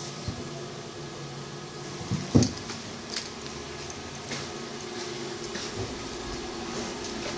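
Steady hum inside a tram car, made up of several low tones, with one loud thump about two seconds in and a few light clicks.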